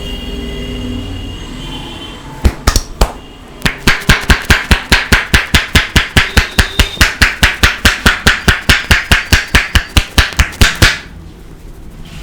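Barber's hands striking a head in a fast, even run of sharp slaps, about five or six a second, during a head massage's percussive chopping stroke; a few single slaps come first, and the run stops suddenly near the end.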